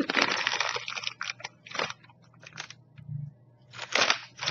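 Close-up crunching of an in-shell almond being bitten and chewed: one long crunch over the first second, then a run of shorter crunches, with a louder one about four seconds in.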